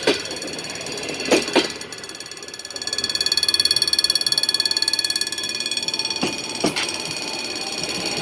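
Train passing over jointed rail, its wheels knocking in pairs as each bogie crosses the rail joints. A steady high whine with a fluttering pulse rises in the middle and fades out after about three seconds.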